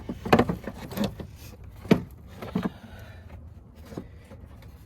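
Hard plastic knocks and clunks as the air filter box is worked back into place in the engine bay, about four sharp knocks in the first three seconds, the loudest a little under two seconds in, then quieter rubbing.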